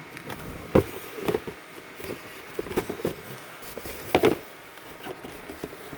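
Handling noises from a cardboard shoe box: a few light knocks and rustles, the loudest just under a second in and again about four seconds in.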